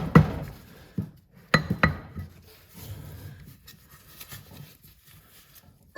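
A soft-blow hammer tapping on a diesel turbocharger to knock its parts loose from the housing. There is a loud knock just after the start and a cluster of about four more between one and two and a half seconds in. Lighter metal handling clinks follow, and a sharp clink with a brief ring comes at the very end.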